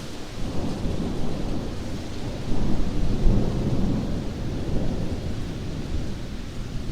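Heavy downpour with a low rumble of thunder that swells about two and a half seconds in and then eases off.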